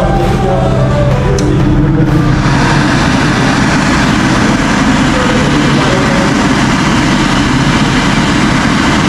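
Background music for about the first two seconds, then a loud, steady rushing noise of street traffic with a low engine rumble takes over.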